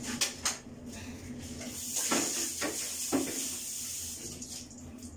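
Bathroom cleaning noises: a few light knocks and clatters of items being handled, with a steady hiss lasting about two seconds in the middle.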